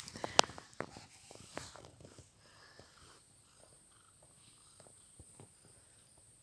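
Domestic cat purring close up, with a few sharp clicks and rustles in the first two seconds, the loudest about half a second in.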